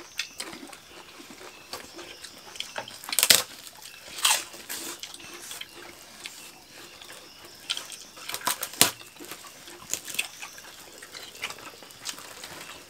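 People eating by hand: wet chewing and lip-smacking, with scattered sharp smacks, the loudest about three, four and nine seconds in.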